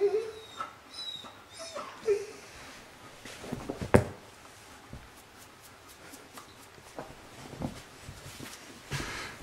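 Saarloos wolfdogs at play, with a few short whines and cries in the first two seconds. A sharp knock about four seconds in is the loudest sound, and lighter knocks follow.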